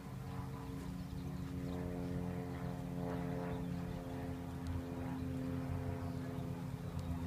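Steady drone of an engine running at a constant speed, holding one pitch throughout.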